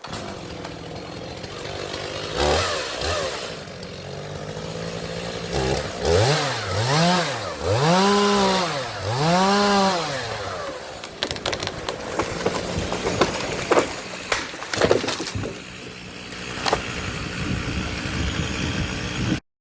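Chainsaw running, revved up and down several times in a row, then running on under load with several sharp cracks in the second half.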